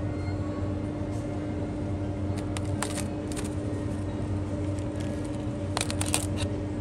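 Steady low machine hum of a supermarket's cooling and ventilation equipment, with scattered light clicks and rustles two to three seconds in and a quick cluster of them near the end.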